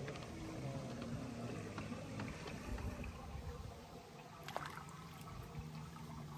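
Outdoor canal ambience: a steady low rumble with faint lapping water around a swimming female mallard, and one sharp click about four and a half seconds in.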